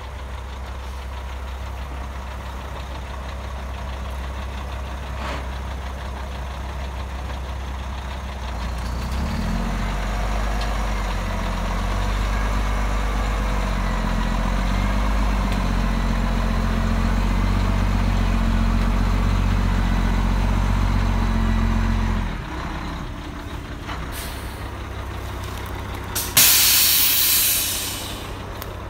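Diesel dump truck engine running as the truck creeps along a dirt drive, working harder and louder through the middle stretch, then easing off. Near the end a loud hiss of air brakes lasting about a second and a half.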